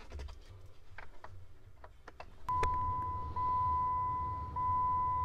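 Light plastic clicks as a radio's touchscreen is fitted onto its mount, then, about two and a half seconds in, a click of the ignition key and a steady high warning tone from a 2008 Jeep Wrangler's dashboard that sounds for about three seconds over a low hum.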